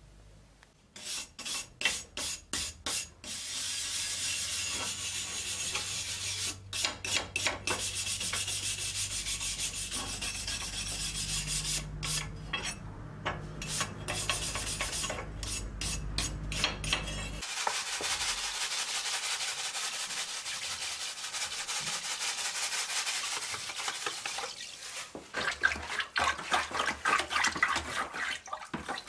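Hand wire brush scrubbing rust off a steel cleaver blade in fast back-and-forth strokes: a few separate strokes at first, then continuous scraping. Near the end, water is stirred and sloshed by hand in a plastic tub.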